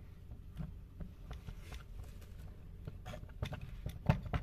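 Light clicks and knocks of plastic and metal parts being handled as an electric chain sharpener is taken apart by hand: gears, shaft and housing pieces lifted and set down, with a few sharper knocks near the end.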